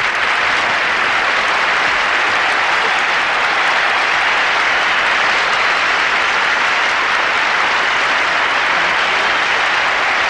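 Large audience applauding in a standing ovation, steady and unbroken.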